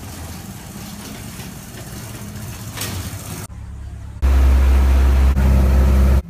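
Ambient clips joined by cuts. First a motor vehicle's engine runs steadily. Then, about four seconds in, the loud low rumble of a boat engine takes over, heard aboard a motorised outrigger boat with wind on the microphone. The rumble breaks off for a moment near the end.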